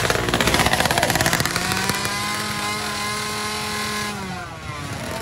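A 116cc underbone drag motorcycle revving at full throttle. It holds a high engine note that climbs slowly, then falls away about four seconds in as the throttle closes.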